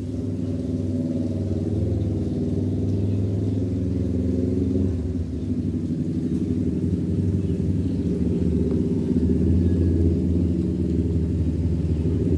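Domestic cat purring steadily right at the microphone, a low continuous rumble that dips briefly and shifts in pitch about five seconds in.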